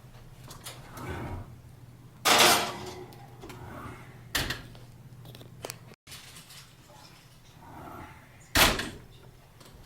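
Kitchen handling noises: three loud knocks and clatters, the first about two seconds in lasting about half a second, the others about four and eight and a half seconds in, over a low steady hum.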